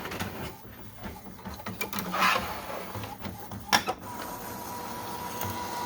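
Epson WorkForce WF-7720 inkjet printer running a print: paper feeding and the print-head carriage working, with clicks and a louder click partway through, then a steady whine near the end.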